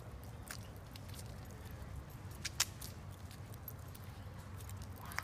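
Scattered light ticks and clicks, one sharper about halfway through: small dogs' claws tapping on paving stones as they trot on leash, over a low steady rumble.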